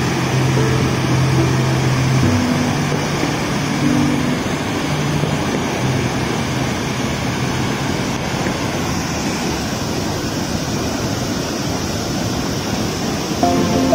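Water rushing over the open spillway gates of a large dam: a steady, dense rush of noise. Soft background music notes run under it for the first few seconds and return near the end.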